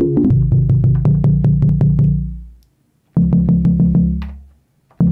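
Modal Electronics Cobalt5S virtual-analogue synthesizer playing a fast, repeating low pattern, about six clicky notes a second over held bass notes. The pattern dies away twice and starts again when new keys are pressed.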